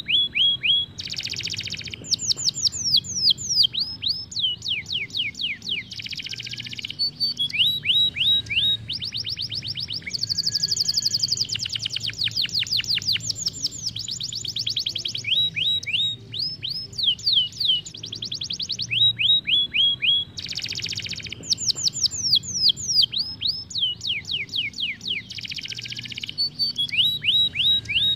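Isabel canary singing a long, continuous song: fast series of repeated down-sweeping notes alternating with dense, rapid rolls.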